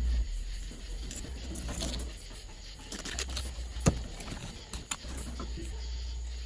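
Bubba fillet knife slicing and scraping along a redfish on a cutting board, with handling rustles and two sharp taps about four and five seconds in, over a low rumble.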